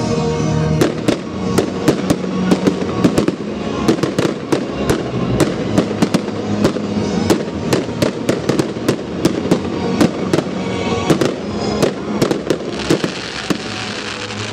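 Fireworks display: a rapid, irregular string of sharp bangs and crackles from bursting shells, starting about a second in, with music playing underneath.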